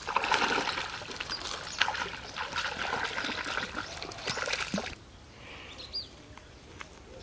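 Splashing and sloshing in shallow muddy pond water, a hooked fish thrashing at the surface, for about five seconds before it cuts off abruptly. A quieter background follows, with a single short bird chirp about six seconds in.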